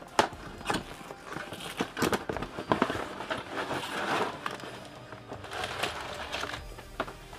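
Several knocks from a cardboard box being handled, then rustling and crinkling around the middle as a coiled plasma torch cable in plastic wrap is lifted out of it.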